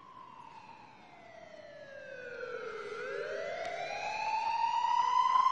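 Eerie film-score tone: one pitched tone slides slowly down for about three seconds, then a second tone slides back up, swelling louder as it rises.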